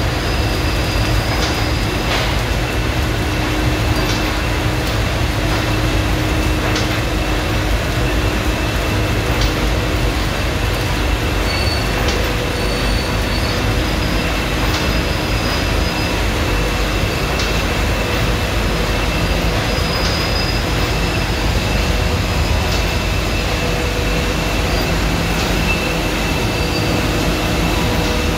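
1993 HANNA automatic car wash at work: its rotating brushes and drive motors run with water spraying, making a constant loud mechanical rumble. Several steady whines run through it, and one whine shifts higher partway through.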